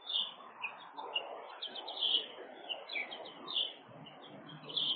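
Birds chirping: a quick, uneven series of short high chirps, several a second.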